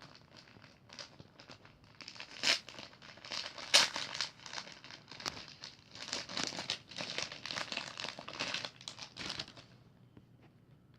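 Packaging crinkling and crumpling as it is handled and unwrapped, dense irregular rustles from about two seconds in until shortly before the end.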